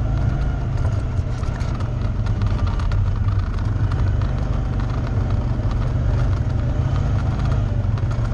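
ATV engine running steadily as the machine drives along a muddy dirt trail, a continuous low rumble with no pauses.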